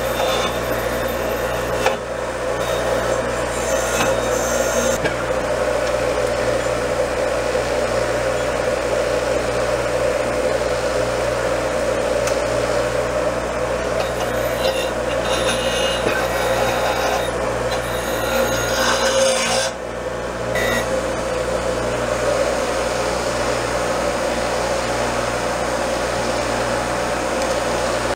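Bench grinder's wire wheel spinning with a steady whine while a rusty steel gas-range igniter bracket, gripped in vice grips, is scrubbed against it, wire-brushing off the rust that keeps the burner from sparking.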